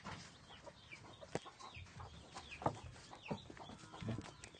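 Young chicken calling in short, falling chirps and clucks, several spaced through the moment, with one sharp click about a second and a half in.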